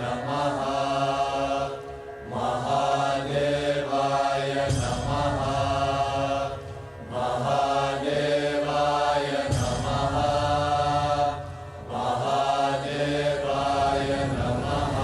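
Chanted mantra over a low steady drone, sung in phrases of about five seconds with short breaks between them.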